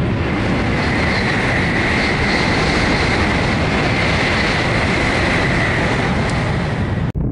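N700-series Shinkansen high-speed train passing at speed on a viaduct: a steady rush of wheel and air noise with a high whine over it. The sound cuts off suddenly near the end.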